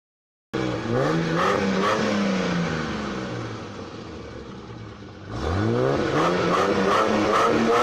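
BMW M5 engine revving: it starts abruptly with a quick rise in revs, then the revs fall away slowly and the sound quietens. About five seconds in it is revved hard again.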